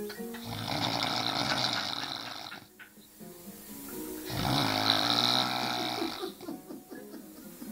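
A man snoring heavily after drinking beer: two long snores of about two seconds each, roughly four seconds apart.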